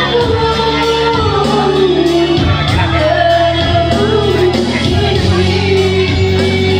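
A song playing, a singing voice over a steady accompaniment with sustained bass notes.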